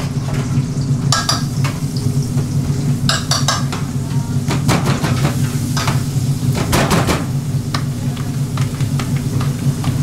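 Commercial kitchen din: a steady low hum under frying sizzle, with scattered clinks and knocks of metal pans and utensils.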